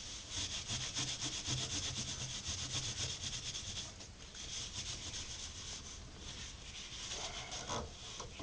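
Rubbing a stained wooden piece down by hand: fast back-and-forth strokes making a dry, scratchy hiss that eases off briefly about halfway through and again a couple of seconds later.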